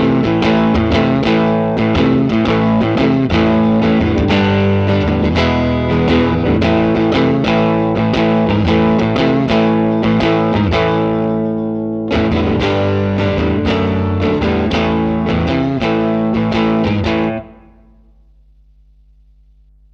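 Electric guitar, a Fender Stratocaster, played through a Line 6 Helix amp-and-cab model: a fast run of picked notes and chords, with a brief break a little past the middle. The playing stops about two and a half seconds before the end, leaving a low steady hum.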